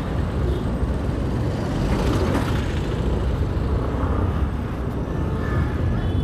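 A scooter riding through town traffic: a steady rush of wind and road rumble, with the scooter's small engine running underneath.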